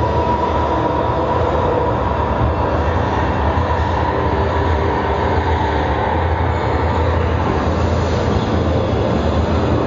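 Sound installation's ambient drone: a loud, steady, dense low rumble, with a held tone above it that fades out about six seconds in.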